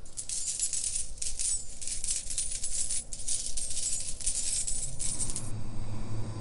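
A heap of metal coins shifting and jingling: a dense clatter of small bright clinks that stops suddenly about five and a half seconds in, over a faint low rumble.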